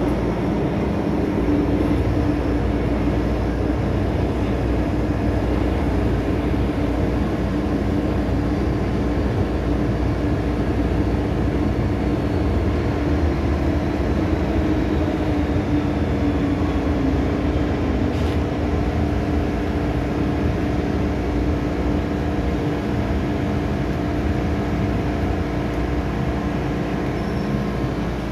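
MTR M-Train electric metro carriage, heard from inside, running and braking into a station: a steady rumble of wheels on track with a constant hum, and a faint high whine that falls in pitch midway as the train slows. A single click about two thirds of the way through.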